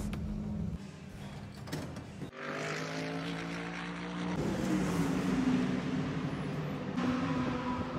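Race car engines running on the circuit, with a steady engine note from about two seconds in and a car going by with a falling pitch around the middle.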